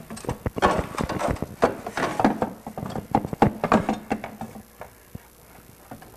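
Irregular knocks and clatter of a replacement EVAP vapour canister being handled and fitted up into its mounting bracket. The noise is dense for about four seconds, then thins out to a few faint taps.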